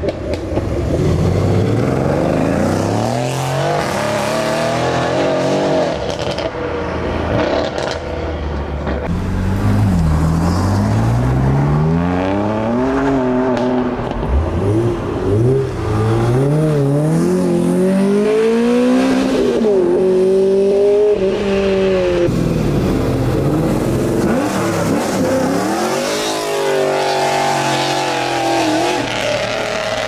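Several performance cars accelerating hard one after another. Their engine notes climb and drop sharply again and again as they shift up through the gears, and a steadier engine note follows near the end.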